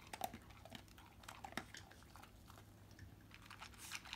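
A beagle eating dry kibble from a bowl: faint, irregular crunches of chewing, sparser in the middle.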